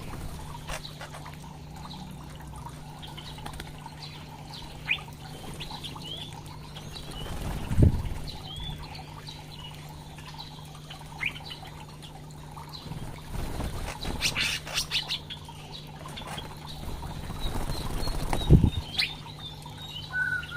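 Small caged songbirds giving short chirps and calls, with a few louder flutters of wings, about 8 seconds in, around 14 to 15 seconds and near 18 seconds, as birds fly in to take mealworms from a hand.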